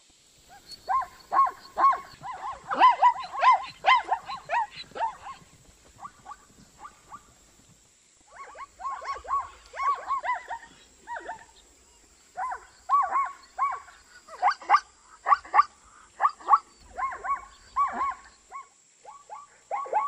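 Zebra calling: runs of short, rapid barking yelps, about three or four a second, broken by pauses of a few seconds.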